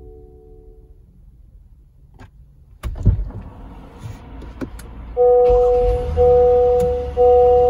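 2023 Honda Pilot's V6 engine on a cold start: quiet for a few seconds, then cranking and catching about three seconds in, after which it idles with a low steady rumble. From about five seconds in, a two-note warning chime repeats about once a second over the idle, matching the door-open warning on the dash.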